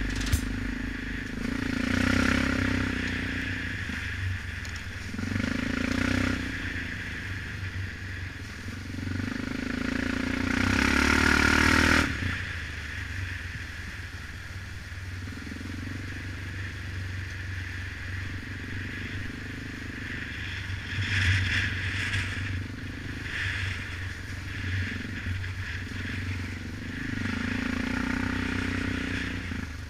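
2006 Suzuki KingQuad 700's single-cylinder engine running as the ATV rides a rough trail, the throttle swelling and easing off every few seconds, with rattling over the bumps. The revs climb to their highest about twelve seconds in and then drop off sharply.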